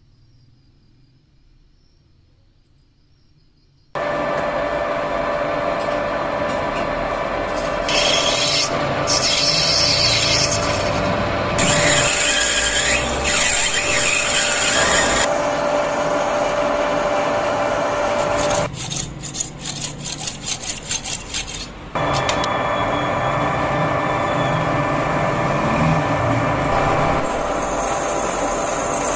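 Metal lathe running with a steady motor hum, starting suddenly about four seconds in, as a cutting tool turns a brass workpiece with loud scraping cutting noise in spells. Later a drill bit held in the tailstock bores into the spinning brass, with a high whistle near the end.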